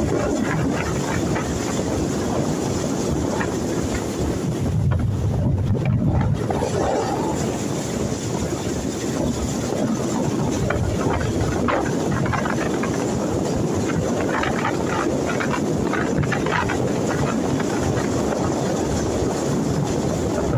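Motorboat running at speed across open water: a steady engine and hull rush, with wind buffeting the microphone.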